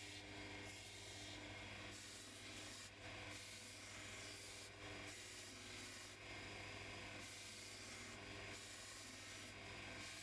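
Knife blade being ground on an electric belt sharpener: a faint abrasive hiss that swells and fades with each pass of the blade, over the steady hum of the motor.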